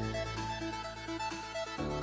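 Background music: an electronic track with a repeating keyboard melody over sustained bass notes that change about every two seconds.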